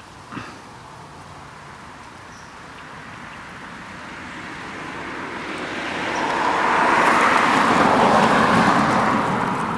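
A car driving past on the road: its tyre and engine noise builds steadily over several seconds, is loudest a little past two-thirds of the way through, then begins to fade as it goes by.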